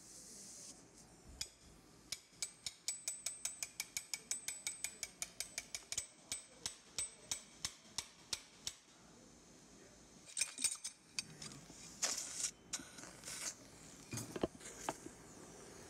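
Mallet tapping a metal femoral broach into a dog's femur while the canal is shaped for a cementless hip stem: a fast, even run of light, ringing metallic taps, about five a second, lasting about seven seconds, then a few scattered louder knocks.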